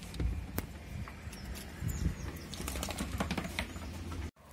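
A key working the lock of a narrowboat's steel door, with scattered small metallic clicks and handling rustle. Later comes a quick run of clicks and pattering as a dog moves about close by.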